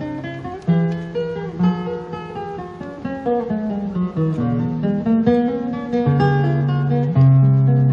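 Background music: a guitar playing a melody of plucked notes over sustained bass notes.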